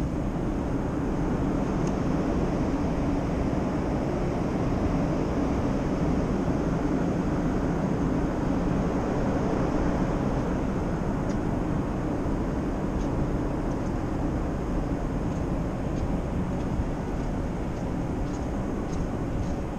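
Steady low rumble on a ferry's open deck: wind buffeting the microphone over the hum of the ship's machinery.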